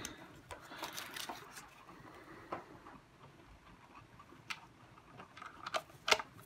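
Faint, scattered clicks and taps of a Torx screwdriver and screw against the plastic cyclone housing of a Dyson vacuum as a screw is worked into its hole. There are about half a dozen, the loudest two close together near the end.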